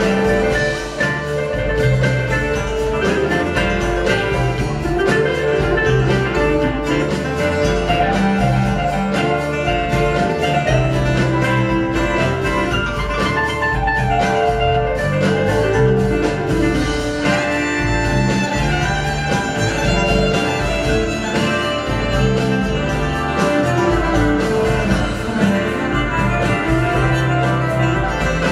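Live bluegrass-rock band playing an instrumental passage: acoustic guitar, banjo, drums and bass, with a fiddle line on top over a steady beat.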